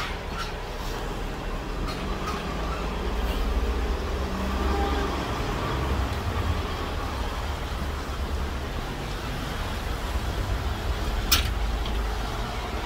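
City street traffic led by a transit bus engine running close by at the curb: a steady low rumble that swells a few seconds in. A single sharp click sounds near the end.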